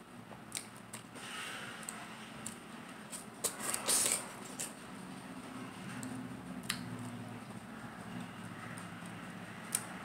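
Close-miked wet chewing and mouth smacks of a person eating fresh pineapple slices, scattered short clicks with a busier cluster about three to four seconds in. A faint steady hum runs underneath.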